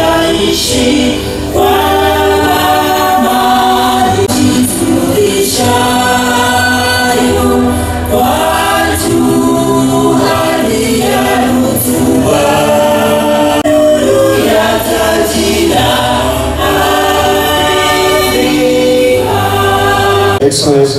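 Choir and standing crowd singing an anthem together in slow, held phrases.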